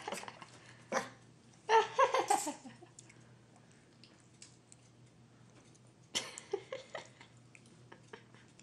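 Short, high-pitched vocal sounds: one falling call about two seconds in and another about six seconds in, over a faint steady hum.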